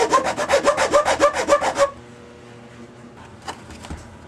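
Hand file rasping on the plastic edge of a switch cutout in a center console, in quick, rhythmic back-and-forth strokes that stop about two seconds in. Then a couple of light knocks.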